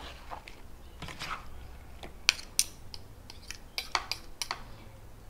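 A utensil clinking and scraping against a bowl while mixing raw fish in coconut milk: a scatter of light clicks, the sharpest two close together about two and a half seconds in.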